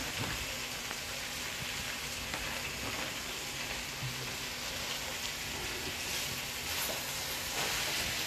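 Chow mein noodles and vegetables sizzling in a hot aluminium kadai as they are stir-fried with a wooden spatula: a steady frying hiss, louder for a moment near the end.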